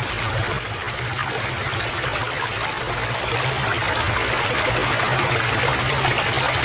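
Stream water running steadily, with a low steady hum underneath.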